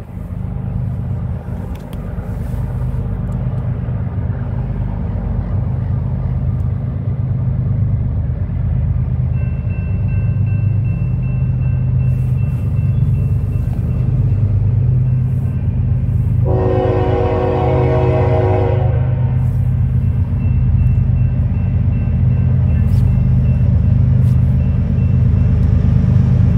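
Approaching BNSF freight train: the diesel locomotives' low rumble builds steadily louder, and about sixteen seconds in the locomotive's air horn sounds one long chord of about two and a half seconds.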